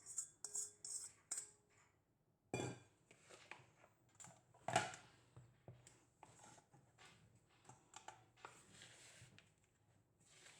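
Dishes and utensils clinking and knocking. There is a run of small clinks at the start, then two louder knocks about two and a half and five seconds in, and lighter handling sounds after them.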